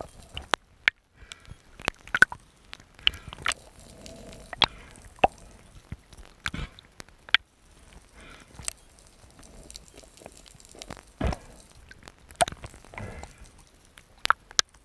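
Underwater sound picked up by an action camera: scattered sharp clicks and knocks at irregular intervals over faint water noise.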